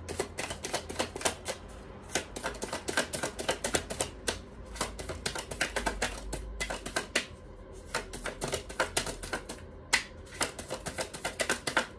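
A deck of tarot cards being shuffled by hand, overhand style: a rapid, uneven run of card clicks and slaps, with a couple of short pauses.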